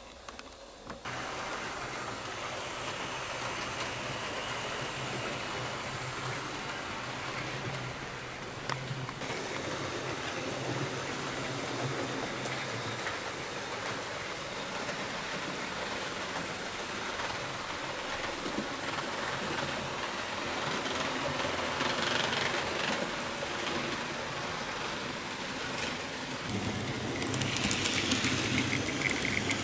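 HO-scale model train running on the layout: the steady rolling rattle of wheels on the rails and the motor hum of a Fleischmann class 78 steam tank locomotive hauling its coaches. It starts about a second in and gets louder near the end as the locomotive passes close.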